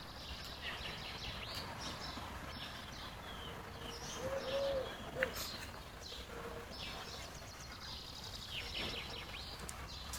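Small birds chirping and twittering on and off, with one short low cooing call about four seconds in and a single sharp click just after it.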